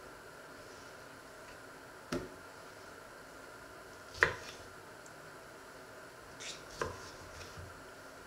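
Small kitchen knife cutting plums on a wooden cutting board: four separate knocks of the blade on the board, a second or two apart, the loudest about four seconds in.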